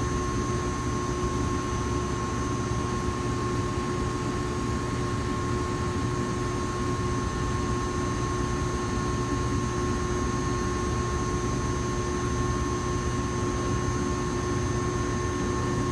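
Electrical power boxes humming steadily, with several fixed tones over a constant blowing of cooling fans; the equipment may be a transformer.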